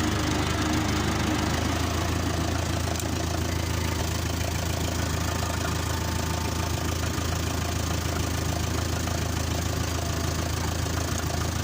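Diesel tractor engine running steadily, a low, even drone with no change in speed.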